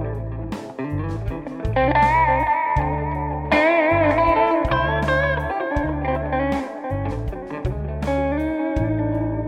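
Electric guitar playing A minor pentatonic phrases, with wavering vibrato on held notes, over a backing track with bass and drums.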